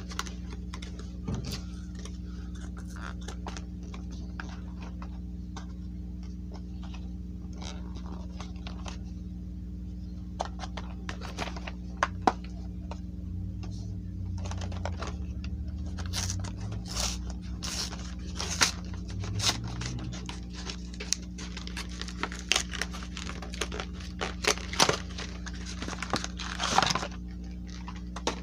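A Pokémon card theme deck box being unwrapped and opened by hand: scattered tearing, crinkling and scraping of plastic wrap and cardboard, busier in the second half, over a steady low hum.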